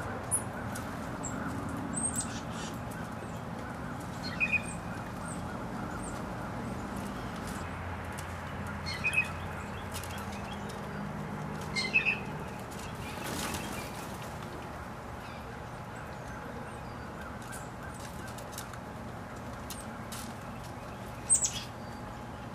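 Short, sharp bird chirps a handful of times, over a steady low background hum, with light rustling and ticking of dry leaf litter as a robin roots through it.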